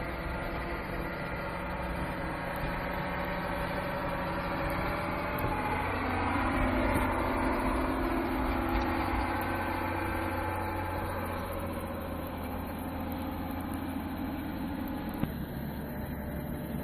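Mercedes-Benz Unimog 406's diesel engine running steadily as it plows snow with a front dozer blade, getting louder with its note rising and falling in the middle, then settling back.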